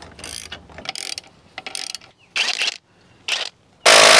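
Hand ratchet wrench clicking in a run of short strokes as bolts holding the trim bracket of a 2004 Tohatsu outboard are worked loose. Near the end comes a much louder, longer burst of metal noise.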